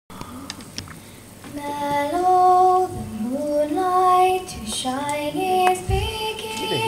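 A young girl singing a folk song unaccompanied, starting about a second and a half in, moving in steps between long held notes.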